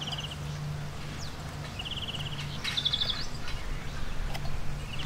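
A bird giving short, rapid trills, four times, each a quick run of repeated high notes, over a steady low hum in the background.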